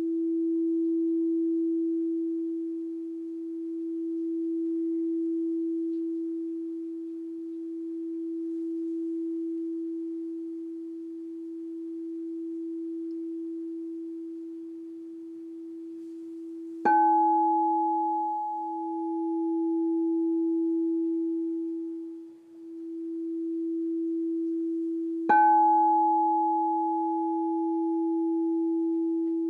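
Crystal singing bowl tuned to E ringing on with one steady pure tone that slowly swells and fades. It is struck twice with its mallet, a little past halfway and again near the end, and each strike adds a bright chime of higher overtones that dies away.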